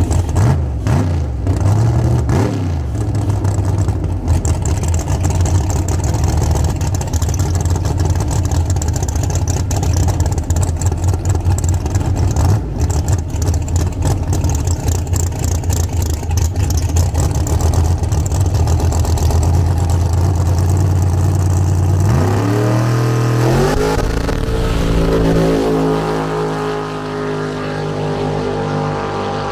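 Drag race car engines running loud and steady at high revs. About 22 seconds in, an engine note climbs sharply as a car launches and accelerates away, then fades near the end.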